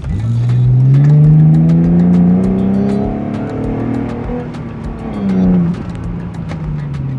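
Car engine accelerating, heard from inside the cabin: the engine note starts suddenly, climbs steadily for about three seconds and eases off, then rises again briefly around five seconds in and drops back to a steadier, lower note.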